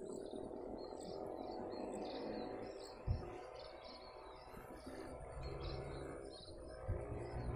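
Rustling of the phone rubbing against a jacket as it is handled, with two dull knocks, one about three seconds in and one near the end. Steady high chirping carries on behind it.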